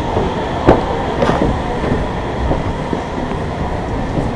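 Steady rumbling noise of wind buffeting the microphone, with a couple of sharp knocks in the first second and a half.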